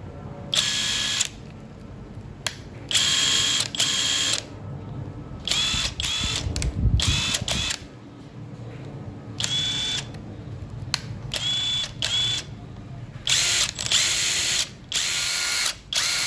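MAX PJ-ID143 14.4 V cordless impact driver run free with no load in a series of short trigger pulls, about nine, each a second or so of motor whine with a high ringing tone, some rising in pitch as the trigger is squeezed further. It is a running test of the used driver.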